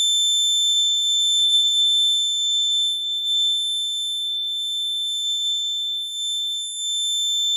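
Piezo alarm buzzer on an alcohol-detection circuit board sounding one continuous high-pitched tone: the warning that alcohol has been detected.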